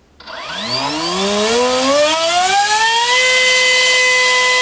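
Turnigy 2836 3200kV brushless motor spinning a 4.75x4.75 propeller, run up from standstill: a whine rising in pitch for about three seconds, then holding steady at full throttle. The prop is large enough to overload the motor.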